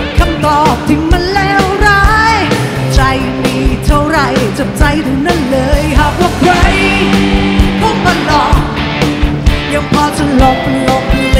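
Live rock band music from a concert recording: a steady drum beat, bass and electric guitars, with a lead melody that bends and wavers over them.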